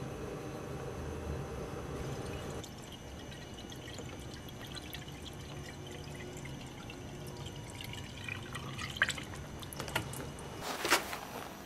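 Antifreeze coolant being poured from a plastic jug into a radiator filler neck, a trickling pour with small splashes and drips, followed by a few sharp knocks near the end.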